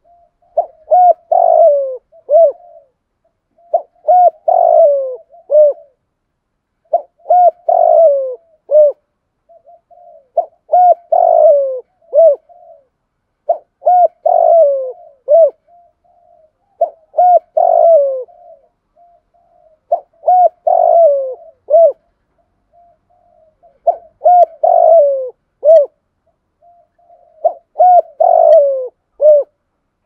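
Spotted dove cooing in the 'thúc gù' call of a decoy bird, used to rouse other doves: about nine phrases a few seconds apart, each a run of falling coos, with softer notes between phrases.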